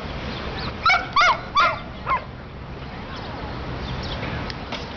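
A dog gives four quick, high-pitched yips about a second in.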